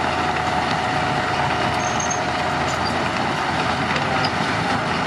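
Heavy earthmoving machinery's diesel engine running steadily.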